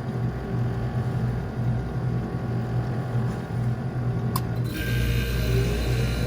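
Refrigeration unit running with a steady hum. A sharp click comes about four seconds in, and just after it the running sound gets fuller and a rising whine starts, as a motor in the unit comes up to speed.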